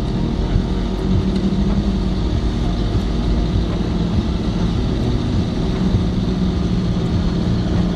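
The vehicle's engine running steadily, heard from inside the cab, under a constant hiss of rain and water splashing as it drives through a flooded street.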